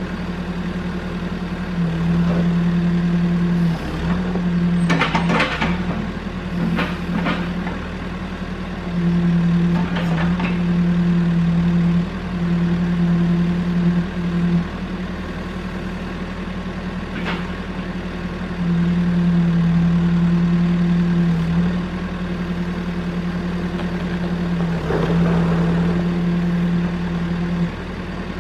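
Caterpillar backhoe's diesel engine running at a steady pitch, getting louder for stretches of a few seconds at a time, with several sharp knocks and clanks scattered through.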